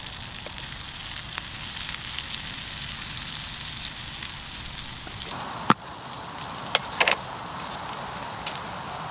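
Diced bacon sizzling as it fries in a RidgeMonkey compact sandwich grill pan. A little over five seconds in the sizzle suddenly becomes softer, and a few sharp clicks and knocks follow.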